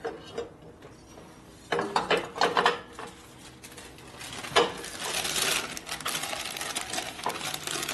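Small metal hardware and parts clinking and rattling under hand work: a few bunches of clacks, one sharp knock a little past halfway, then a steady rattling and scraping near the end.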